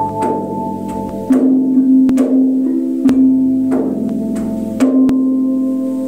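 Struck metal bells ringing in a slow melody, a new note struck about every second, about six strikes in all. Each note rings on and overlaps the next.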